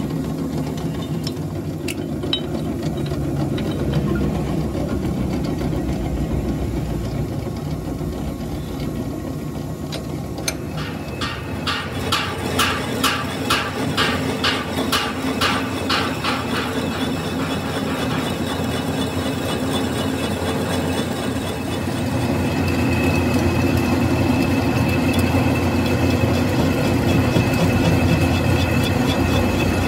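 Metal lathe running while a boring tool cuts inside a steel hub's bore. Partway through there is a run of regular sharp knocks, about three a second; near the end the sound gets louder, with a steady high-pitched whine from the cut.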